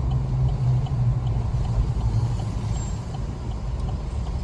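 Steady low drone of a motor vehicle's engine and road noise, with no sharp events.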